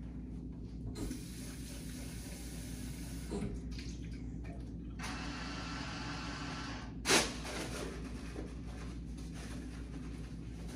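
Water splashing into a stainless steel sink in two spells of about two seconds each, as a urinary graduate is emptied and rinsed. A sharp knock about seven seconds in is the loudest sound.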